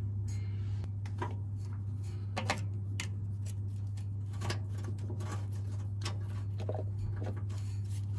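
Scattered light clicks and scrapes of a screwdriver working a rubber hose off the speedometer bullet fitting on a TH350 transmission, over a steady low hum.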